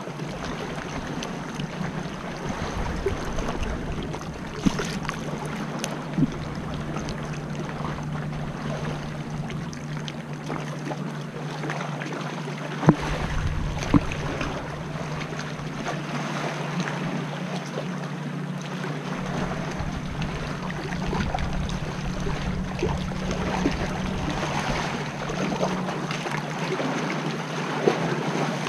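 Water splashing and lapping against an inflatable kayak as it is paddled, with a few sharp knocks, the loudest two about halfway through.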